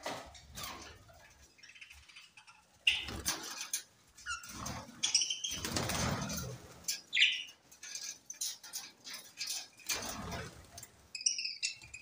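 Budgerigars flapping their wings in short bursts as they fly about the aviary, with brief high chirping calls, including a quick pair of calls near the end.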